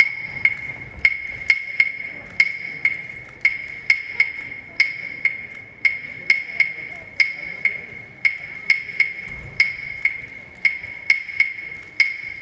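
Wooden percussion block, like claves, struck alone in a steady rhythm of about two strikes a second, each a short, bright, ringing click: the percussion intro of the dance music for a Cuban-style dance.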